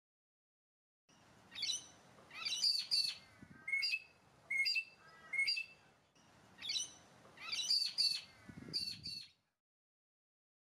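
Magpie-lark calling: a run of loud, sharp, repeated calls in quick groups, starting about a second in and stopping about a second before the end.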